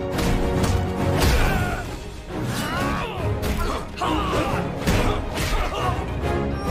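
Orchestral action film score, with sharp punch and impact hits and swishes of a fight struck over it at irregular moments.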